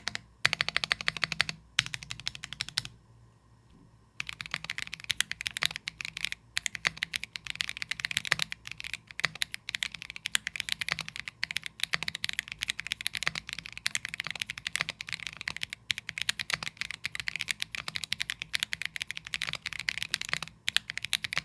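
Fast typing on a mechanical keyboard fitted with PBT Cherry-profile keycaps, a quick run of key clicks that stops briefly about three seconds in, then carries on.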